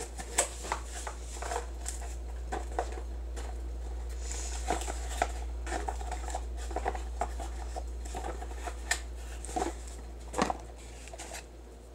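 Small cardboard box of food colouring being handled and opened by hand: irregular light clicks, taps and rustles of the box and the little bottles inside, with a sharper knock near the end.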